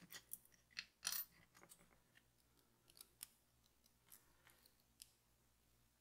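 Faint, sparse clicks and clinks of small metal tools being handled, with a short cluster of clicks about a second in.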